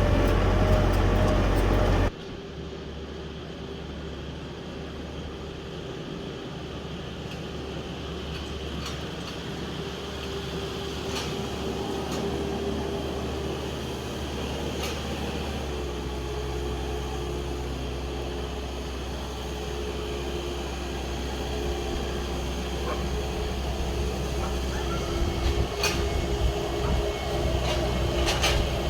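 Diesel tractor engine running steadily, loud for the first two seconds, then suddenly much quieter; its note shifts about halfway through and it grows slowly louder, with a few light clicks near the end.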